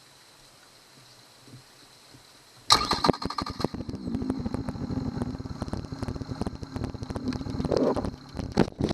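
Yamaha 70 hp outboard motor starting about three seconds in and running with a rapid firing beat for about six seconds, then dropping away. The owner says this engine knocks, and traces the knock to a Honda fuel line connector fitted in place of the Yamaha one.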